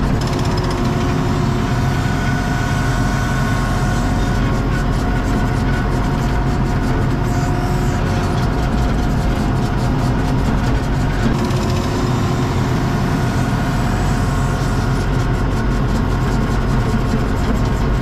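Skid steer engine running steadily while its bucket spreads and drags fill dirt, with a steady whine over the engine note.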